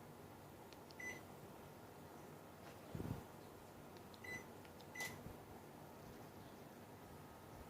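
Panasonic CS-XN5SKJ air conditioner indoor unit beeping three times, short high beeps about a second in and twice more near the middle, as it acknowledges remote-control commands. A low thump comes about three seconds in, over a faint steady hum.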